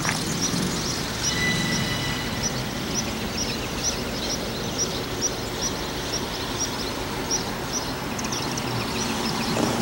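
EMD diesel locomotive's engine running with a low rumble as it creeps slowly along. A bird chirps rapidly over it, about three short chirps a second.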